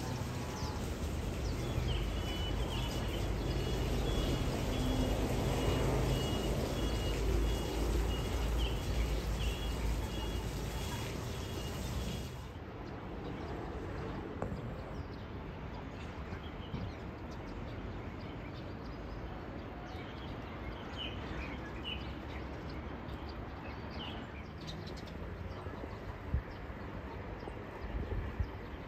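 Outdoor ambience: a steady low rumble with small birds chirping in short repeated calls. The rumble drops to a quieter level about twelve seconds in, with one sharp knock near the end.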